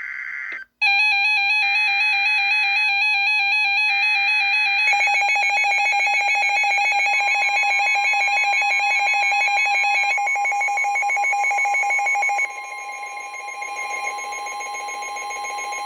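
Simulated Emergency Alert System alert tones: a brief steady tone, a short break, then a loud electronic alarm of several warbling tones at once. About five seconds in a fast buzzing pulse and a steady higher tone join it, and the whole alarm drops in level about two-thirds of the way through.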